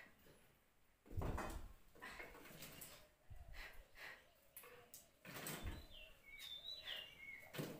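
Scattered knocks and scrapes of firewood sticks and a steel utensil being handled at a clay wood-burning stove as the burning sticks are pulled out to put the fire out, with a few short high chirps near the end.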